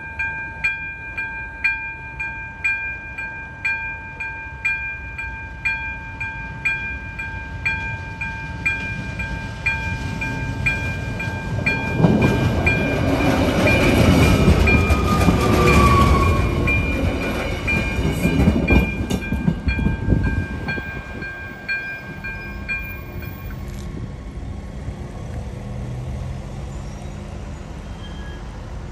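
Railway level crossing warning bell ringing in a steady, regular beat of about one and a half strokes a second. From about twelve seconds in, a regional railcar rumbles and clatters over the crossing, loud enough to cover the bell for several seconds, with a brief falling squeal in the middle. The bell stops a few seconds after the train has passed.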